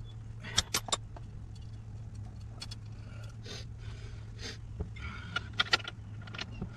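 Metal hand tools and sockets clinking against each other and the steel steering knuckle during a ball joint job: a quick run of sharp clinks about half a second in and another around five and a half seconds, with short scraping and rustling between. A steady low hum runs underneath.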